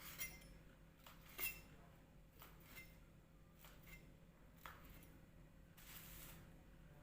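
Faint, scattered clicks and clinks of kitchen utensils being handled, about half a dozen light knocks spread out with quiet between them and a brief hiss near the end.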